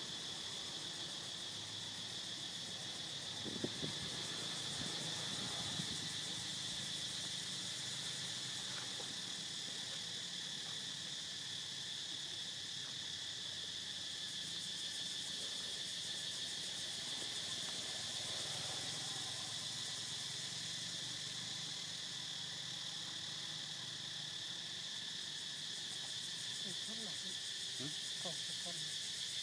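Steady, high-pitched insect chorus, one unbroken drone. A few faint short calls rise above it about four seconds in and again near the end.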